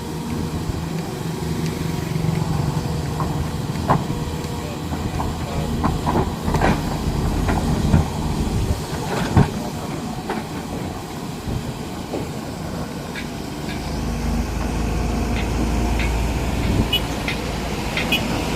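Heavy diesel construction machinery running steadily, with scattered sharp metallic clanks and knocks. The engine note deepens into a louder low rumble a little after halfway.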